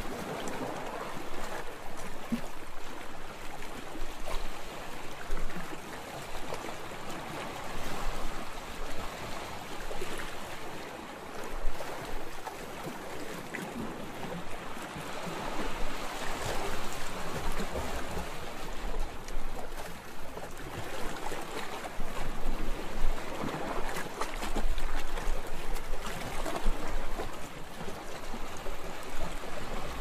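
Ocean waves: sea water sloshing and lapping in rolling swells, a steady wash that rises and eases every few seconds.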